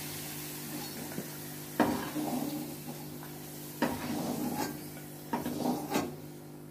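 Metal spoon scraping and clinking in a non-stick wok as fried potato pieces are lifted out of hot mustard oil, in a few short scrapes about one to two seconds apart, over a faint sizzle of the oil.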